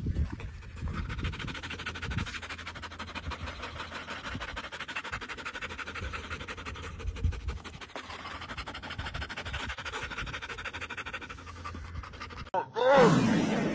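A black Labrador puppy panting quickly and steadily close to the microphone, over a low rumble. Near the end the panting cuts off and a voice takes over.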